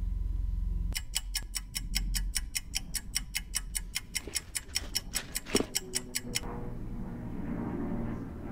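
Helicopter passing over, its rotor beating in a fast, even rhythm of about five or six pulses a second over a low rumble. The beating starts about a second in and gives way to a fainter hum about six seconds in.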